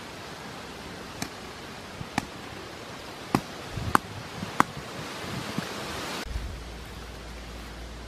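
Sharp clicks and knocks of wooden sticks being handled over a small campfire's embers, about five in the first five seconds, over a steady hiss.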